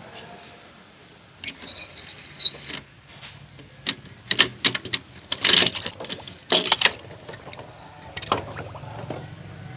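Die-cast and plastic toy cars handled on a concrete ledge: a short rolling scrape, then a quick series of sharp clicks and knocks as the toys are set down and bumped together, over a low steady hum.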